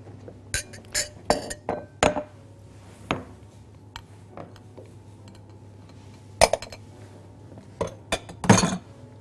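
Glassware and dishes clinking and knocking as they are moved about on a kitchen counter: a quick run of clinks in the first two seconds, a few scattered ones, and the loudest clatter near the end.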